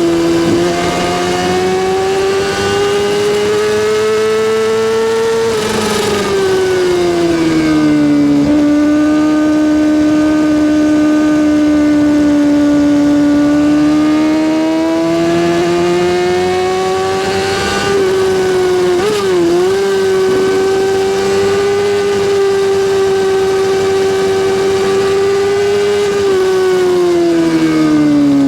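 Kawasaki ZX6R inline-four motorcycle engine running at a high, steady pitch. The pitch climbs slowly, drops about six seconds in, holds level with a brief dip about two-thirds of the way through, and falls away near the end.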